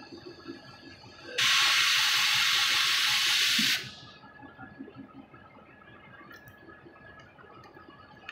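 Compressed air venting from a standing diesel locomotive's air brake system: a loud, steady hiss that starts abruptly about a second and a half in and cuts off sharply about two and a half seconds later.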